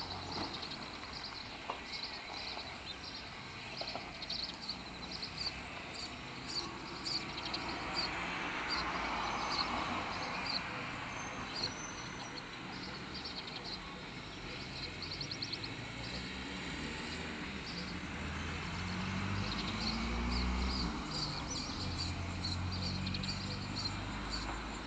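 Short high chirps of small birds, repeating a couple of times a second over a steady outdoor hiss. A low rumble builds in the second half.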